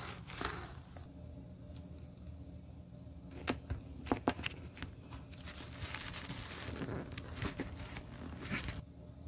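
A metal scraper scraping old glue along a leather slipper's edge for about the first second. After that come a few sharp clicks and a stretch of crinkly, rubbing handling noise as hands press a rubber heel piece into place.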